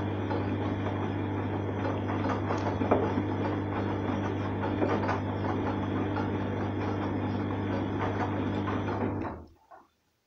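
Arçelik 3340 SJ front-loading washing machine washing, its drum turning the wet laundry: a steady motor hum with sloshing and small clicks and rattles. The sound cuts off abruptly about nine seconds in.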